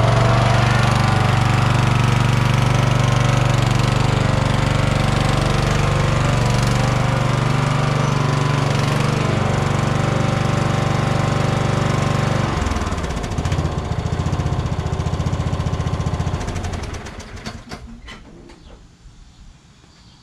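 Toro LX460 lawn tractor's 20 hp Kohler Courage engine running steadily under way, just after a drive-pulley swap. About two-thirds through, the engine note drops and goes uneven for a few seconds, then dies away.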